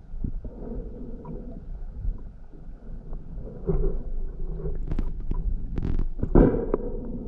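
Muffled low rumble of water moving past an underwater camera. It is broken by a few sharp clicks and knocks about five seconds in, and a louder short burst a little after six seconds.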